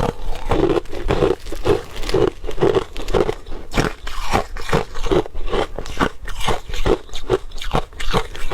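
Crushed ice being chewed: a steady run of sharp crunches with a chewing beat of about two bites a second.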